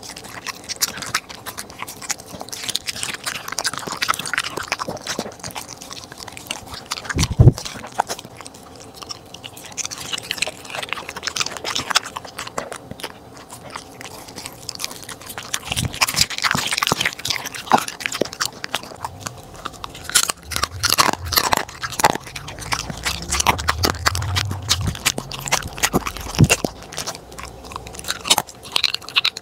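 A corgi eating raw meat from a plate: close, wet chewing and crunching with many short crackles, and one louder knock about seven seconds in.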